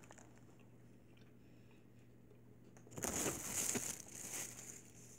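Paper sandwich wrapper rustling and crinkling for a second or so, starting about three seconds in, as a sub is handled on it. Before that only a faint steady room hum.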